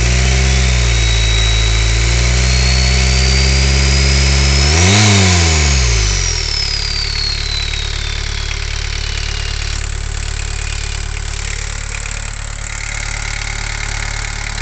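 Volkswagen 1.6 turbo-diesel engine revved up and held, peaking about five seconds in before dropping back to idle. The turbocharger's whistle climbs in pitch with the revs, then winds down slowly for a few seconds after the engine has settled back to a steady idle.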